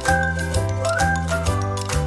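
Background music: a tune with sustained notes over a bass line that changes note about every half second, with a steady beat.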